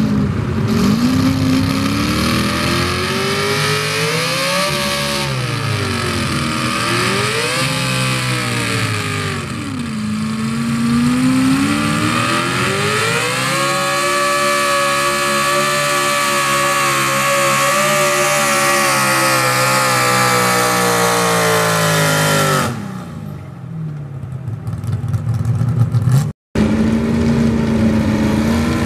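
Chevrolet Silverado pickup's engine under full load pulling a sled: revs climb, rise and fall twice as the throttle is worked, then hold high and steady for several seconds before dropping off suddenly as the pull ends. After a cut, near the end, another pickup's engine runs steadily at a lower pitch.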